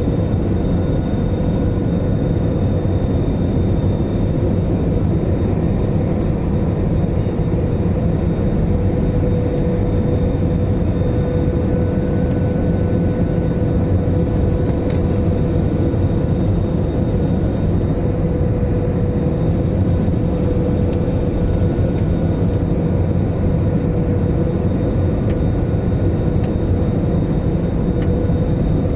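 Steady jet airliner cabin noise on approach to landing: a constant rumble of engines and airflow with a steady mid-pitched hum running through it.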